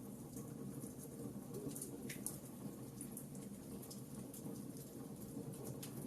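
Wood fire crackling in a fireplace: a steady low rush of flames with scattered small pops and snaps.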